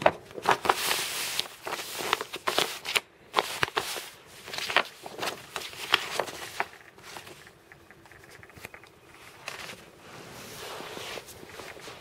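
Folded paper leaflet rustling and crackling as it is unfolded and handled, the rustles thick in the first half and sparser and quieter later.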